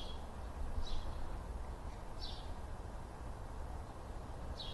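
Birds chirping in short high calls about four times, over a steady low background rumble.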